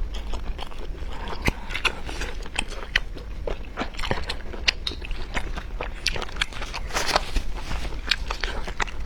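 Close-miked eating: irregular wet chewing and mouth smacks, with a steady low hum underneath.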